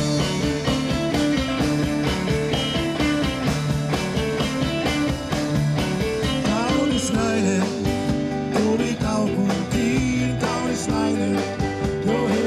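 Live band playing a song on electric and acoustic guitars over a steady beat, with some notes bending in pitch about seven to nine seconds in.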